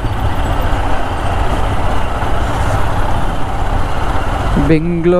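Royal Enfield Himalayan motorcycle riding in dense city traffic: a steady rumble of its engine mixed with the surrounding traffic noise.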